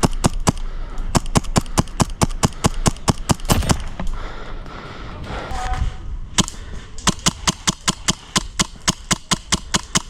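Airsoft guns firing in quick strings of sharp shots, about four to five a second, with a pause of about two seconds near the middle before the firing resumes.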